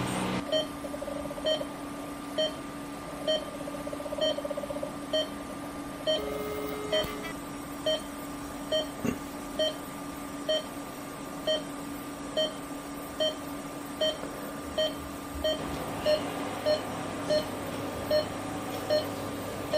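Medical monitor beeping about once a second, a short steady-pitched beep repeated evenly, over a steady equipment hum.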